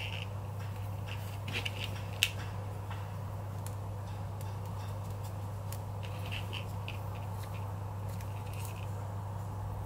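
Small clicks and rustles of hand-sewing: a needle and waxed thread being handled and pushed through leather and woven webbing, with one sharp click about two seconds in. A steady low hum runs underneath.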